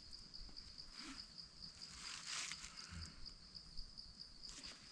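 Steady, high-pitched insect chirring, like crickets, with faint soft rustling about a second in and again around two seconds in.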